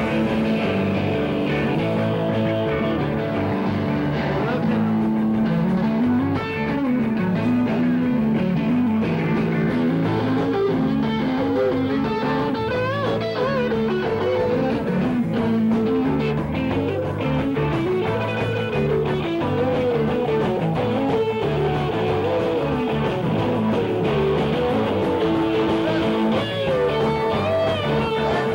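Live rock band playing an instrumental passage, with an electric guitar lead line of bending, sliding notes over the drums and bass.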